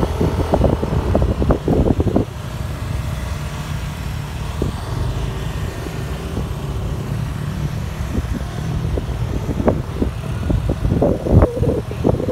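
Scooter-type motorcycle engine running steadily under way, heard from the rider's own bike. Irregular buffeting from wind on the microphone in the first two seconds and again near the end.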